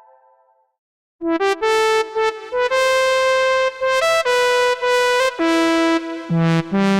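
u-he Repro-1 software synthesizer, an emulation of the Sequential Circuits Pro-One analog synth, playing a preset. A previous tone fades out, then after a short pause a bright, buzzy synth melody of short and held notes starts about a second in, with lower notes joining near the end.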